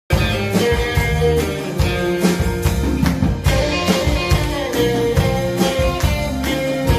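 A live rock band playing, with a drum kit keeping a steady beat of a little over two hits a second under electric guitar and bass lines.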